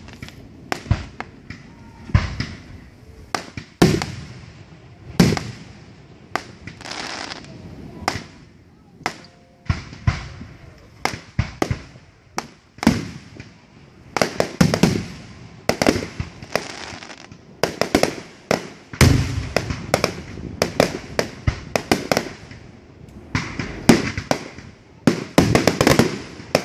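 Aerial fireworks going off one after another: dozens of sharp bangs of shells bursting overhead at irregular intervals, coming thickest near the end.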